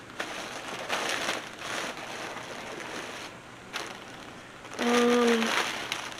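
Plastic packaging bag crinkling and rustling in several bursts as a garment is handled and pulled out of it. Near the end a short hummed "mm" from a voice.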